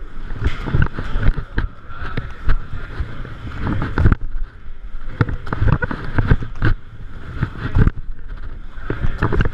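Irregular thuds and knocks of hands and bare feet landing on foam floor mats during burpees, mixed with the rustle and bumping of a body-worn camera.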